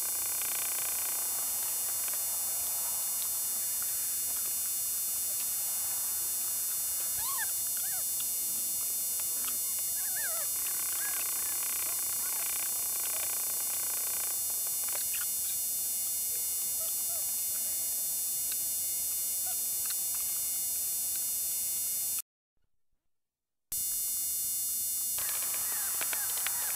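Doberman pinscher puppies playing, with faint short high-pitched squeaks and yips scattered through, over a steady hiss. The sound cuts out completely for about a second and a half near the end.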